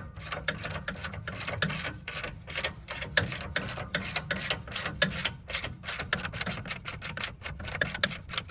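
Hand ratchet clicking rapidly and steadily, about five clicks a second, as the stump grinder's track tensioner is cranked to take the slack out of the loose rubber track.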